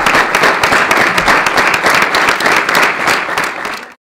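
Audience applauding, many hands clapping, fading down and cutting off near the end.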